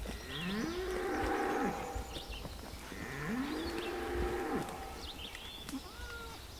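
A cow mooing twice: two long, low calls a couple of seconds apart, each rising, holding steady, then falling away.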